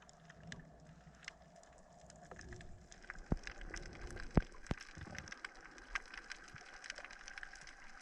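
Underwater reef crackle: a dense stream of faint, sharp clicks, with a few low thumps from about three to five seconds in.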